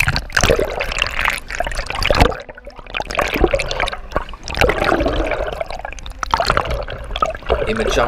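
Lake water splashing and gurgling against a waterproof action camera as it is dunked in and out of the water at the side of a boat.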